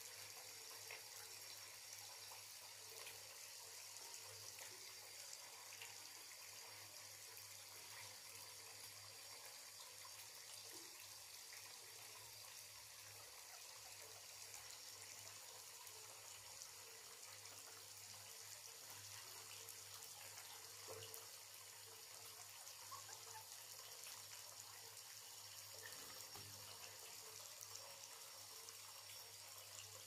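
Faint, steady hiss of water running from a bathtub tap, with a low hum underneath.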